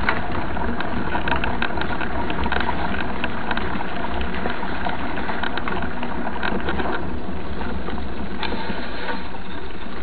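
Mountain bike rolling over a loose gravel dirt road, heard from a camera mounted on the bike: a steady rumble of tyres and vibration with many small rattles and knocks from the bike and mount.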